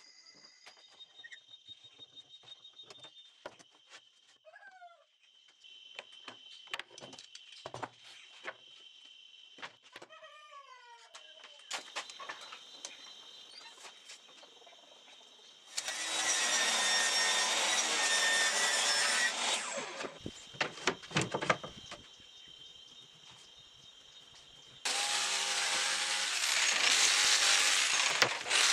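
Light clicks and knocks of clamps and boards being handled, then two loud, steady runs of a power tool, each a few seconds long. The second, starting about 25 seconds in, is a corded electric sander on a board.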